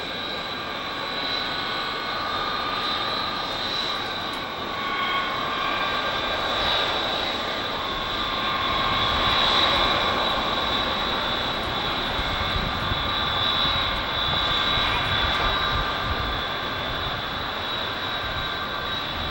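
B-52 bomber's eight jet engines running as it taxis past, a steady rush with a high whine, growing loudest about halfway through and then easing slightly.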